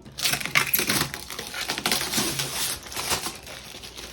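Tight packaging wrap crinkling and rustling as it is pulled off a new Cricut cutting machine: a dense run of crackles that eases off near the end.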